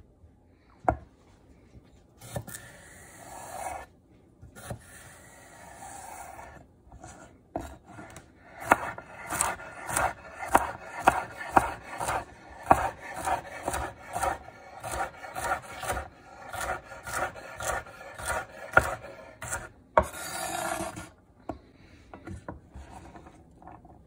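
A chef's knife dicing celery on a bamboo cutting board: a steady run of quick chops, two to three a second, each a crisp knock of blade on wood. A few longer drawn strokes of the knife across the board come before and after the chopping.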